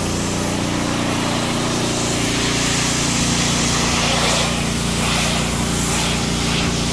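Pressure washer running: the steady hiss of the high-pressure water jet spraying across a pickup's sheet-metal hood, over a steady engine drone.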